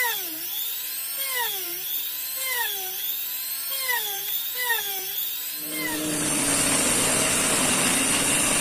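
High-speed mini rotary grinder (die grinder) running in a homemade mini drill press, drilling holes in wood: its whine dips in pitch each time the bit is pressed into the wood and recovers as it is lifted, about once a second. About six seconds in it gives way to the steady rushing noise of a cutting blade running through MDF board.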